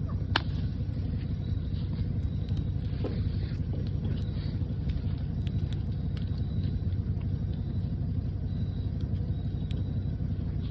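A vehicle engine running steadily, heard as a low rumble, with a single sharp click about half a second in.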